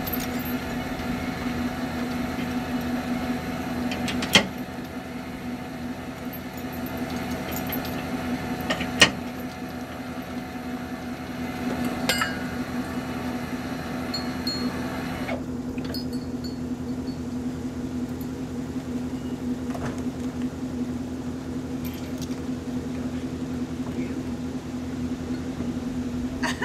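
Trailer safety chains being handled at a pickup's hitch, with two sharp metal clanks about 4 and 9 seconds in and lighter clinks after. A steady machine hum runs underneath; its higher hiss drops away about halfway through.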